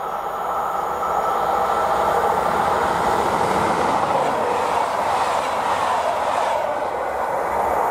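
PKP Intercity passenger coaches running past at speed: a steady rushing rumble of steel wheels on the rails, growing louder about a second in.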